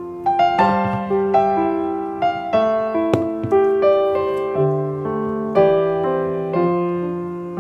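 Background piano music: a gentle tune of separate notes, each struck and fading.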